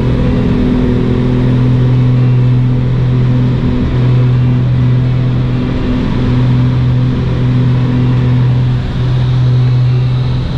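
Engines of a small twin-engine propeller plane, heard from inside the cabin, running with a loud, steady low drone as the plane rolls along the runway. The drone dips briefly about four and nine seconds in.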